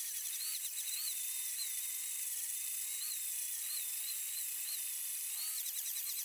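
Power drill fitted with a round sanding pad, spinning against a teak wood handle: a high-pitched whine that wavers up and down in pitch as the pad is pressed on the wood, over a steady hiss of sanding.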